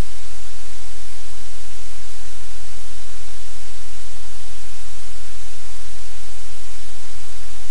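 Loud, steady static hiss with a low electrical hum underneath, the noise of the camera's audio feed, covering any sound from the room.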